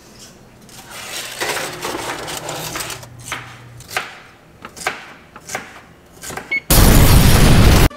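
Scattered clicks and knocks of cake pans being handled and oven control-panel buttons being pressed, over a faint low hum in the first few seconds. About seven seconds in, a loud burst of static-like noise starts suddenly and cuts off about a second later.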